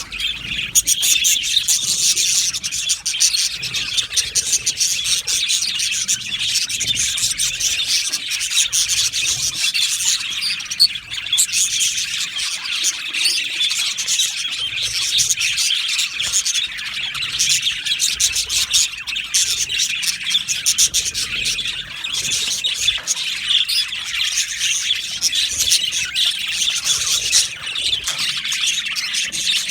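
A colony of budgerigars chirping and warbling together: a dense, continuous chatter of many overlapping high calls.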